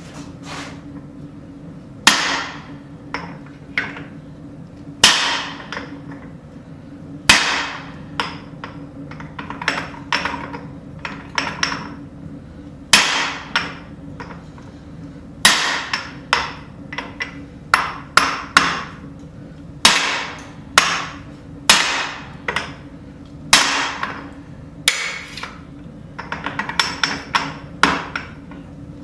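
Hand hammer striking a punch driven into a hot steel hammerhead blank, punching the eye from the second side. The blows are irregular, roughly one a second, each with a short metallic ring, with quicker clusters of lighter blows in the last few seconds.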